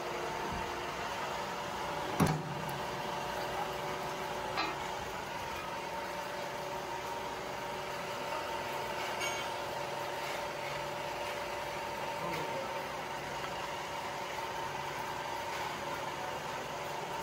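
Hydraulic press's electric motor and pump running steadily with a constant whining hum. A single sharp knock comes about two seconds in, with a few lighter clicks later.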